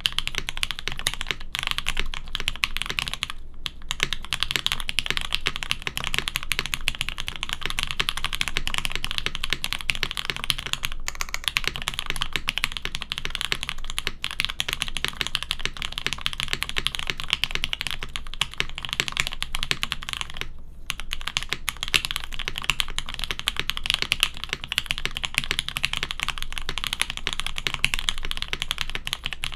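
Continuous fast typing on a custom mechanical keyboard: lubed Gateron Black Ink V2 linear switches with 65 g long springs on a carbon fibre plate, in a foam-dampened brass-weighted J-02 case with GMK keycaps, giving a dense clacking. The typing pauses briefly twice, about three and a half seconds in and near twenty-one seconds.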